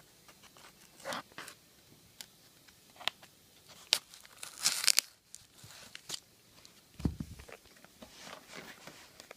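Cardboard shipping box being torn open by hand: scattered rips and crinkles of tape and cardboard, with the loudest tearing burst about halfway through and a dull thump near the end.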